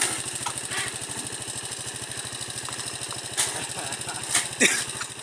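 Motorcycle engine idling with a steady, fast, even pulse. A few sharp clicks and a short falling squeak come near the end.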